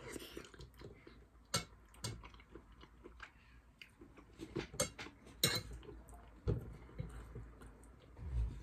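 Close-miked eating: soft chewing of pasta, with several sharp clicks of cutlery against a plate.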